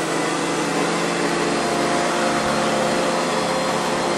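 Hoover Convertible upright vacuum cleaner running steadily at full speed, a constant motor whine and hum.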